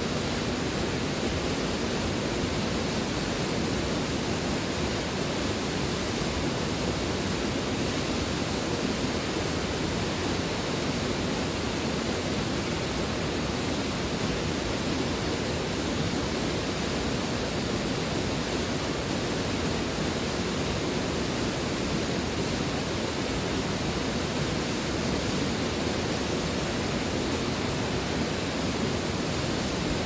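Snowmelt-fed mountain waterfall pouring steadily onto rocks: a constant, even rush of falling water.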